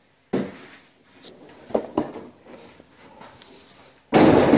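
A few sharp clicks and light taps from paintless dent repair tools working the metal of a car door panel, then a loud scraping rustle about four seconds in.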